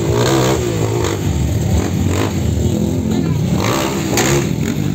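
Engines of off-road vehicles running and revving, several at once, their pitch rising and falling.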